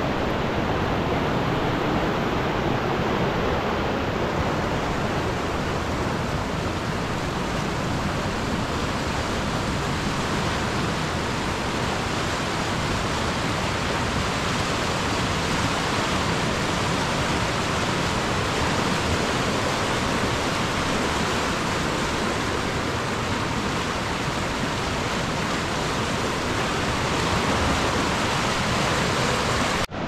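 Rushing water of a fast, raging river: a steady, unbroken rush.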